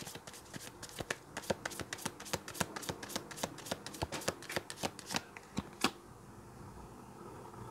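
Tarot deck being shuffled by hand: a rapid run of card flicks, several a second, that stops about five seconds in, followed by one sharper snap.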